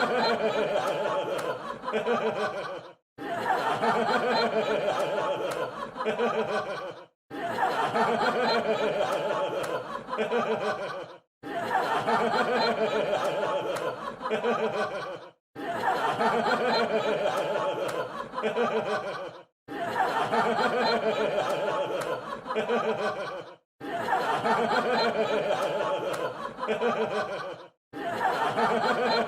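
Crowd laughing: a laugh track of many overlapping voices, a clip about four seconds long looping over and over with a brief silent break between repeats.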